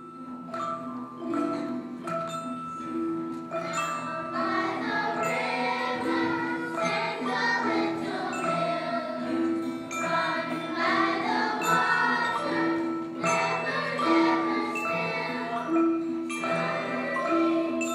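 Music led by mallet percussion such as xylophone or glockenspiel, a melody over a low note that repeats about once a second.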